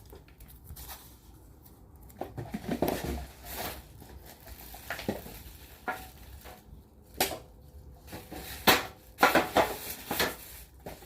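Household belongings being handled and shifted by hand: irregular clattering and knocking of objects, loudest in a cluster of knocks about nine seconds in.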